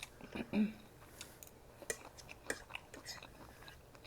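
Close-up chewing with small wet mouth clicks, and a brief voiced murmur about half a second in.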